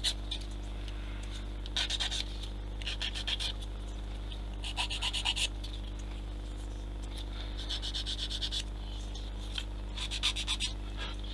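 Hand sanding of small plastic model-kit parts: about five short bursts of quick back-and-forth rubbing strokes, separated by pauses.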